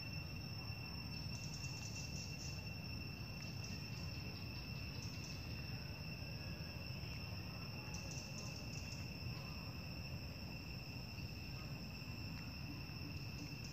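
Steady high-pitched insect drone, held unbroken, over a low background rumble.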